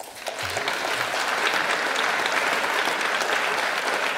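Audience applauding: the clapping starts suddenly and holds steady and full throughout.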